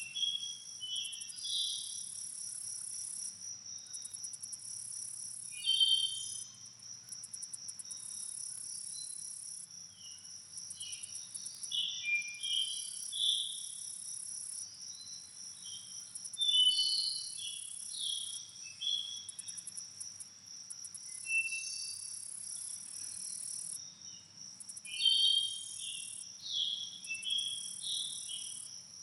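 Crickets trilling steadily in a fast, even pulse, with a second, higher insect buzz that switches on and off in bouts of a few seconds. Songbirds chirp and whistle over them in short scattered phrases, the loudest sounds, coming in clusters.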